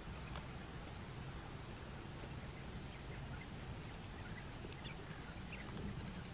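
Faint, scattered short high peeps from Japanese quail chicks, more of them in the second half, over a steady low background hum.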